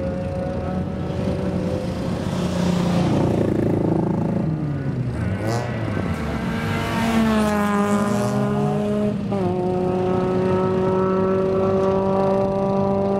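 Touring race car engine at high revs as the car approaches and passes. Its note falls as it goes by about seven seconds in, then holds a steady high pitch as it pulls away.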